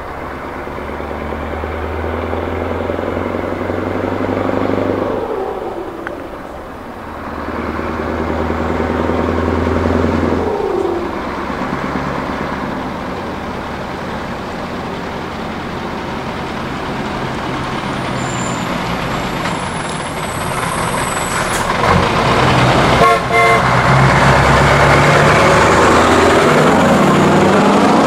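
Scania 144L 530's 14-litre V8 diesel running on open straight pipes, pulling through the gears: its pitch climbs and drops back at shifts about 5 and 10 seconds in, and the sound grows louder as the truck comes closer. A short horn toot about 23 seconds in.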